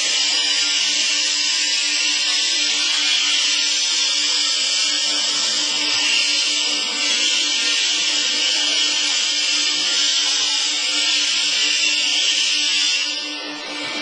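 Horizontal baler running steadily: a constant hum with an even hiss over it, easing off shortly before the end.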